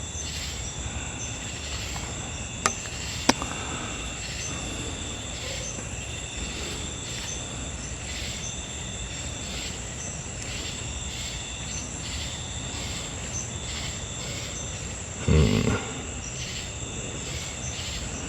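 Insects chirping steadily in a fast, even, high-pitched pulse. Two sharp clicks come about three seconds in, and a short dull thump near the end is the loudest sound.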